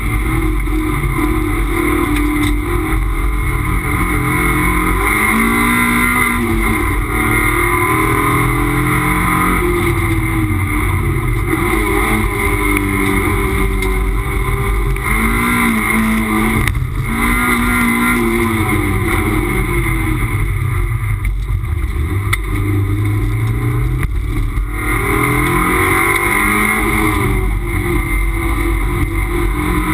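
Toyota MR2 race car's mid-mounted engine heard from inside the cabin under racing load, its revs climbing and falling again and again as the car is driven hard. Heavy road and wind noise runs underneath the engine.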